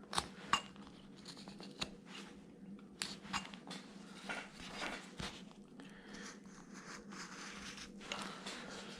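Carving knife slicing and paring wood, a faint string of short clicks and scraping strokes as the base of the carving is tapered at an angle, over a faint steady hum.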